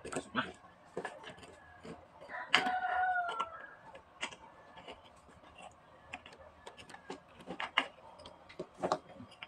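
A rooster crows once, for about a second, about two and a half seconds in. Scattered sharp clicks and knocks of metal starter-motor parts being handled and fitted together come before and after it.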